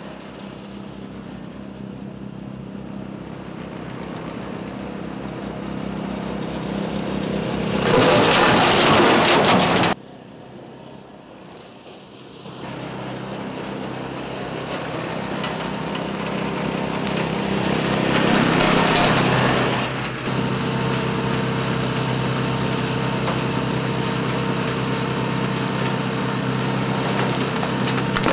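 Tow Vac tow-behind vacuum sweeper running, its engine and blower growing louder as it comes on, with a loud rushing surge as it sucks up the debris pile about eight seconds in. The sound cuts off suddenly at about ten seconds, then builds again to a second loud surge a little before twenty seconds, and settles into steady running.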